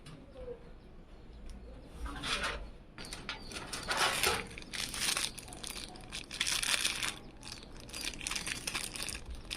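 Packaging crinkling as it is handled, in several separate short rustling bursts.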